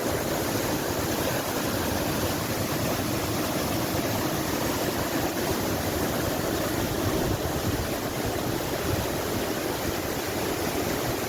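A waterfall's falling water rushing steadily, an even noise with no breaks.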